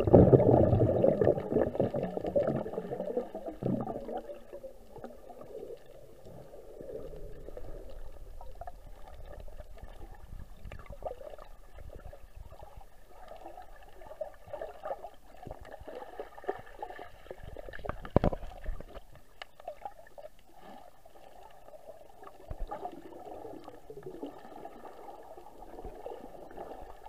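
Underwater sound picked up by a submerged camera: muffled gurgling and sloshing of water, louder for the first few seconds, then a lower uneven wash, with a single sharp click about 18 seconds in.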